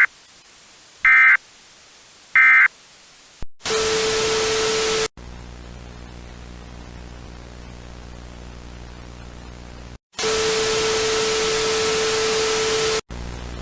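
Three short, shrill digital data bursts of an Emergency Alert System end-of-message code, about a second and a half apart. Then loud static with a steady mid-pitched tone sounds twice, each time for a few seconds, between stretches of quieter hiss over a low electrical buzz.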